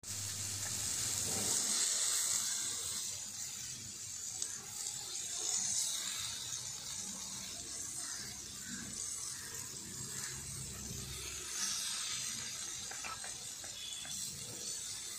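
Masala-marinated paneer cubes shallow-frying in hot oil on a small iron tawa, a steady sizzle.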